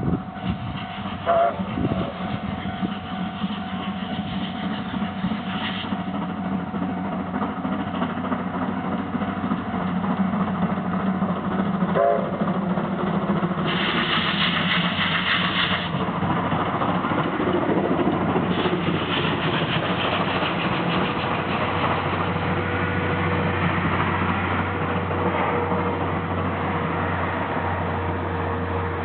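Steam locomotive hauling a train of passenger coaches, running past with engine and rail noise that grows louder over the first half and stays loud as it goes by.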